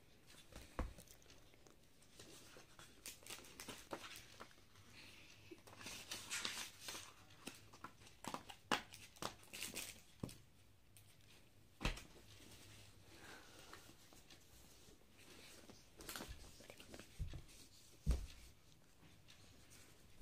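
Comic books and clear plastic packaging being handled: intermittent rustling and crinkling, with a few soft knocks as books are set down.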